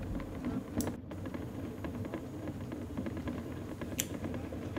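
Mobility scooter rolling along a rough track: many small rapid clicks and crunches from the wheels and frame over a steady low rumble, with two sharper clicks, one about a second in and one near the end.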